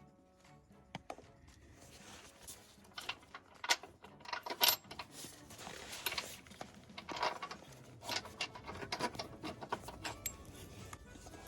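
Metal tools and small metal parts clinking and knocking as they are handled: a string of sharp, irregular clicks, two of them louder about four seconds in.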